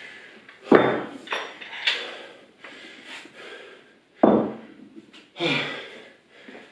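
Dumbbells knocking and being set down on a tiled floor, a few separate sharp knocks, mixed with hard breathing from the exertion just finished.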